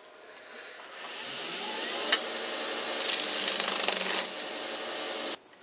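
A power tool's motor spins up and runs while sandpaper rubs against the spinning work, with the rasping loudest between about three and four seconds in. There is a single sharp click about two seconds in, and the sound cuts off abruptly near the end.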